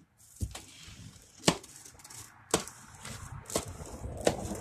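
Plastic packing straps around a cardboard shipping box snapping as they are cut free: five sharp snaps about a second apart, with rustling of strap and cardboard between them.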